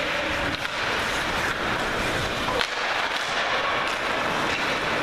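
Ice hockey rink sounds during play: a steady wash of skates on ice and spectators, broken by a few sharp clacks of stick, puck or boards, the loudest about two and a half seconds in.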